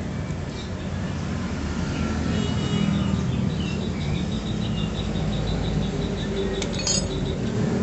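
A vehicle engine running steadily with a low hum that grows gradually louder, with a short cluster of clicks near the end.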